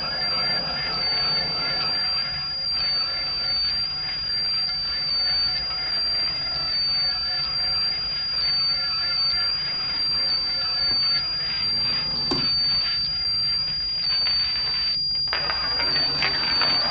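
Experimental live electronics: a steady high sine tone pulsing about once a second over a low hum and faint wavering tones. A sharp click comes about twelve seconds in, and a scratchy, noisy passage near the end.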